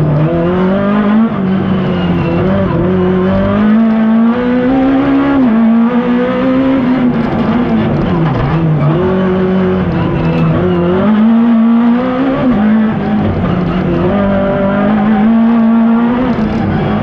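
A Peugeot 106 race car's engine, heard from inside the cockpit, revving hard. Its pitch climbs and falls repeatedly as the driver accelerates and lifts, and it drops sharply near the end with an upshift from second to third gear.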